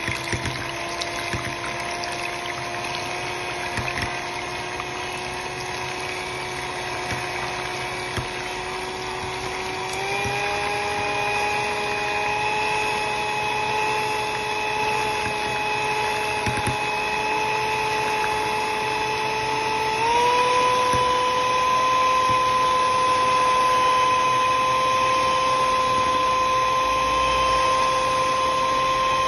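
Electric hand mixer beating eggs and sugar in a glass bowl: a steady motor whine with the beaters whirring through the mixture. The pitch steps up twice, about ten and twenty seconds in, as the mixer is switched to higher speeds.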